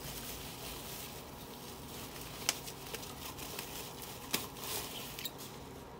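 Plastic bubble wrap rustling and crinkling as it is pulled off a tank, with a few sharp crackles, the loudest about two and a half seconds and four and a half seconds in.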